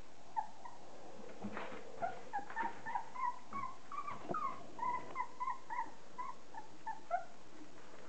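Month-old Border Collie puppies whining in short, high-pitched cries, several a second, with a brief gap about a second in before the cries come thick and fast.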